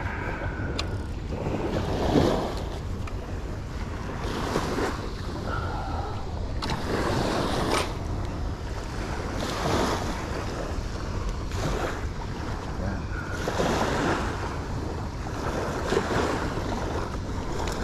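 Small waves washing on a sandy shore, swelling every few seconds, with wind rumbling on the microphone.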